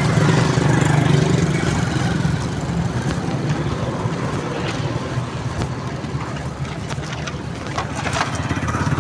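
Steady low rumble of a running vehicle, stronger for the first couple of seconds and then easing, with a few faint clicks later on.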